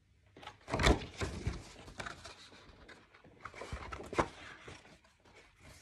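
A picture book's pages being turned and the book handled close to the microphone: a run of paper rustles and soft knocks, loudest about a second in and again about four seconds in.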